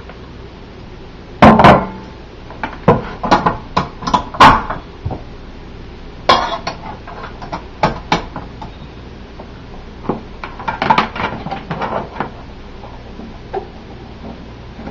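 Irregular clinks and knocks of a stainless steel stand-mixer bowl and its beater being handled as ingredients go in and the beater is fitted, with sharp knocks about a second and a half in and again about four and a half seconds in.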